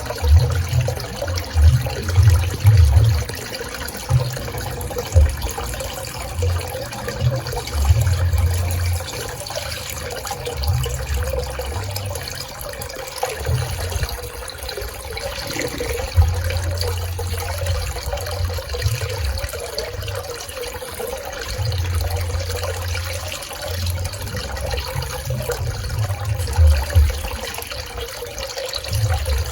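Swimming pool water flowing and splashing steadily, with an uneven low rumble underneath.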